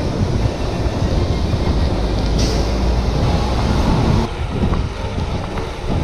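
Riding noise from a mountain bike on a chest-mounted action camera: a steady low rumble of tyres on the road mixed with wind on the microphone. About four seconds in the hiss drops away and the rumble turns more uneven, with a few light ticks.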